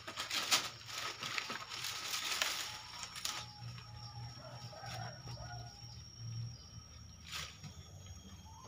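Dry banana leaves and leaf sheaths rustling and crackling as a banana plant is pulled at by hand, in several bursts over the first few seconds and once more near the end.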